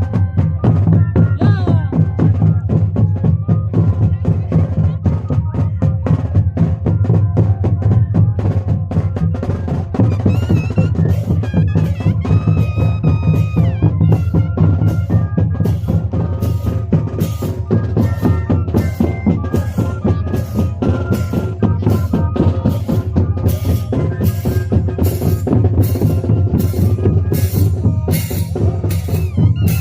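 Moseñada band playing: moseño cane flutes hold long pitched tones over a steady pounding of drums with a deep bass drum. In the last third, sharp drum strokes come about twice a second.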